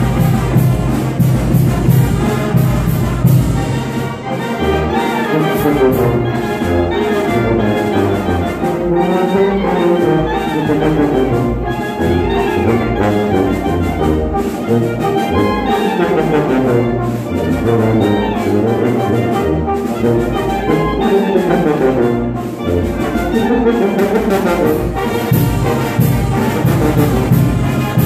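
Brass band music playing a folk dance tune, with melody lines over a steady bass beat.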